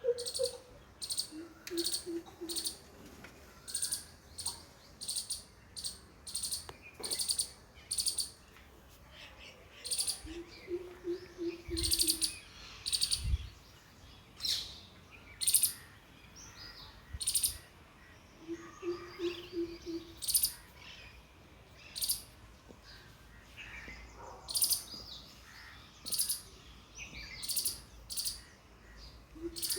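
Birds calling: sharp, high chirps repeated every second or so, and about every eight seconds a short run of four or five quick, low hooting notes.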